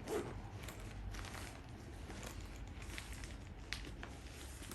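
Rustling and crinkling with scattered light clicks, as packaging and a zippered carry bag are handled.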